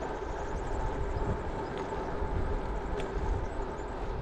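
Steady wind rumble on the microphone with road noise while riding a bicycle.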